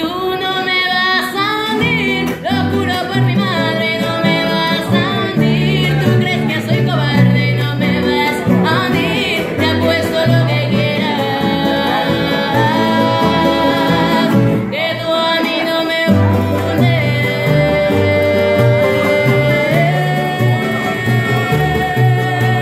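A woman singing a song in full voice with long held notes, over a guitar accompaniment with a stepping bass line.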